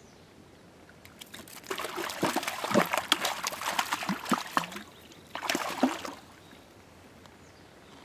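Water splashing and sloshing in the shallows as a hooked brown trout thrashes and is grabbed by hand. There is a long burst of splashing, then a second shorter one about two seconds later.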